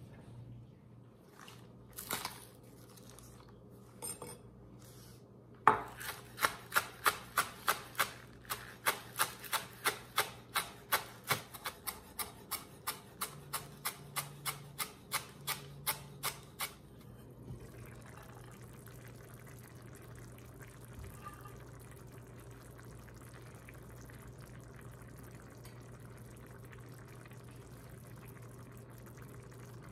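Chef's knife chopping green onions on a wooden cutting board: a steady run of sharp knocks, about three a second, for roughly ten seconds before it stops. A few single knocks come before it.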